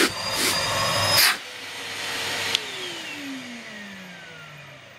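Numatic Henry HVR160 vacuum cleaner running, then switched off about a second in, its motor winding down with a falling whine. A single sharp click comes partway through the run-down.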